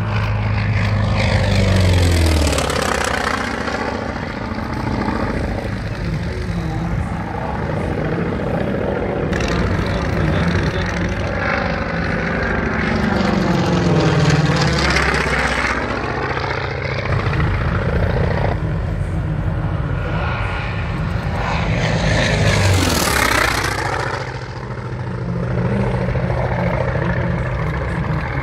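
North American T-28 Trojan's radial piston engine and propeller during low fly-by passes: three times the sound swells as the plane approaches and drops in pitch as it goes past, over a steady low hum.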